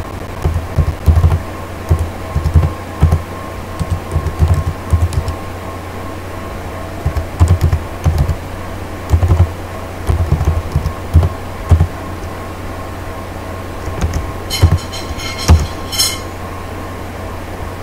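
Typing on a computer keyboard: irregular keystrokes in short runs with brief pauses, over a steady low hum. A few sharper clicks come near the end.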